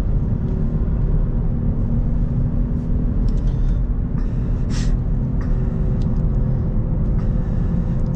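Road and engine noise inside the cabin of a moving car at around 50–60 km/h: a steady low rumble with a faint hum.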